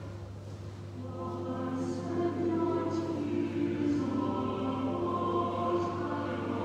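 Choir singing a slow hymn in long, sustained notes, with the pitch moving from note to note every second or so.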